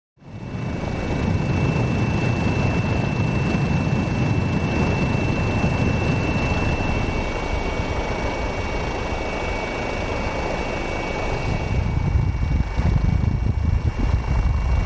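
Aircraft engine running steadily: a loud rushing noise with a thin, steady high whine over it.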